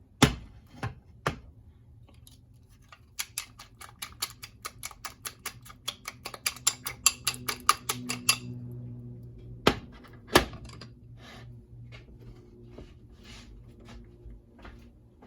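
Eggs being beaten in a bowl, the utensil clicking rapidly against the bowl about five times a second for several seconds, then two sharp knocks on the bowl and slower, softer stirring strokes.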